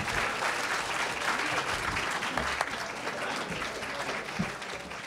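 Audience applauding, with dense clapping that tapers off near the end.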